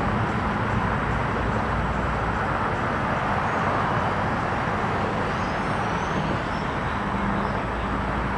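Steady engine noise: a continuous low hum under an even, broad rush, with no break or change in level.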